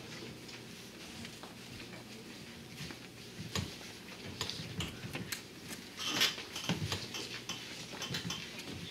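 Scattered, irregular light taps and clicks over a faint low murmur in a small room: footsteps and shuffling of people moving about a classroom.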